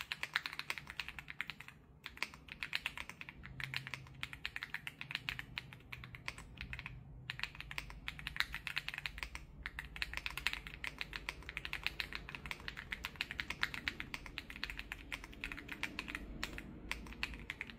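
Typing on a ZIFRIEND RX75 PRO gasket-mounted mechanical keyboard with its factory-greased switches: rapid runs of key clicks, broken by a few brief pauses.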